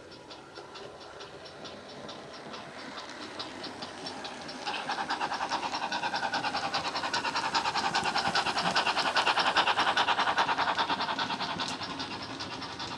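Hornby 28XX model steam locomotive's sound decoder, a Loksound micro driving a 27mm round bass-enhanced speaker, playing rapid, even steam exhaust chuffs as the model runs past. The chuffing grows much louder about five seconds in and fades near the end.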